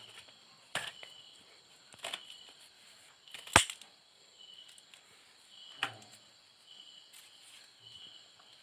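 Sharp clicks and snaps as an LCD panel's metal frame is pressed onto its locking tabs: four distinct clicks a second or two apart, the loudest about three and a half seconds in.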